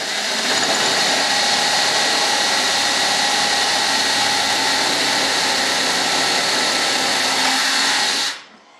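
Handheld electric drill with a long bit running steadily at one speed as it bores a hole into wood; the motor stops about half a second before the end.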